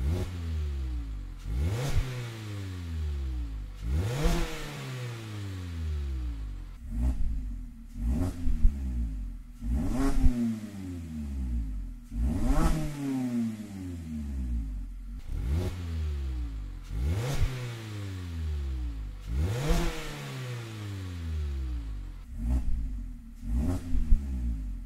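A 2019 Mazda MX-5 Miata's 2.0-litre four-cylinder engine, revved over and over with the car standing still, heard from just behind the tailpipes. Each rev climbs sharply and then sinks slowly back to idle, about every two to three seconds. It plays first through the stock dual-tip exhaust, then through a Good-Win Racing RoadsterSport SuperStreet exhaust.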